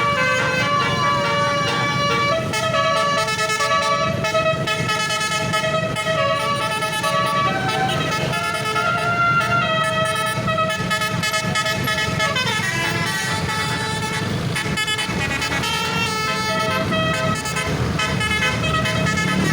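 Basuri multi-tone bus horn ("telolet") playing a tune of held notes that step from pitch to pitch, with a falling glide about twelve seconds in, over a steady low rumble.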